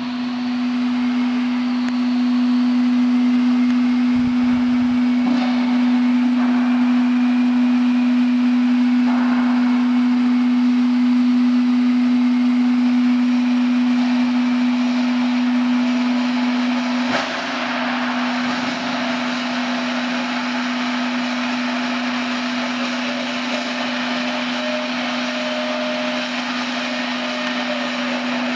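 Vacuum homogenizer emulsifier mixer running with water in its 200-litre vessel: a steady motor hum with one strong pitch over a hiss. It comes up to speed over the first couple of seconds and drops slightly in loudness about 17 seconds in.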